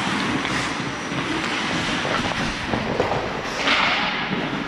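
Ice skate blades gliding and scraping on rink ice: a steady rumbling hiss, with a louder scrape about three and a half seconds in.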